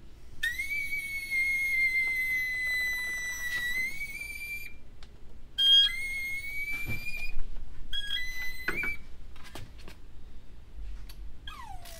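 Trapped air whistling out of a Yamaha F225 outboard's power trim and tilt system as the manual relief valve lets the motor lower: air being squeezed out of the freshly resealed trim cylinders. Three high whistles, the first about four seconds long, then two shorter ones, each wavering slightly in pitch, with a short falling squeak near the end.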